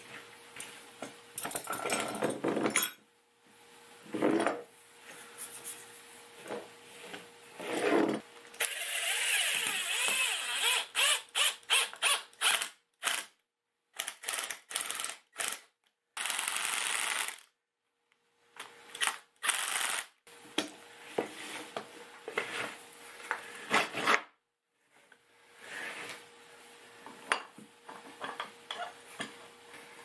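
Woodworking workshop noises: knocks and short runs of tool noise that stop and start abruptly, over a faint steady hum.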